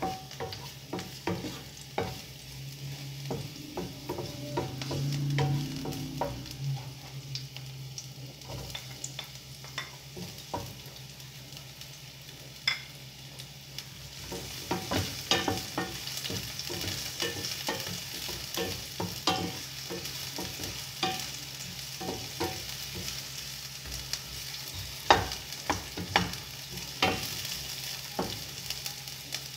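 Chopped garlic and sliced onion sautéing in a nonstick frying pan, sizzling, while a wooden spatula scrapes and taps against the pan as it is stirred. The sizzle grows louder about halfway through.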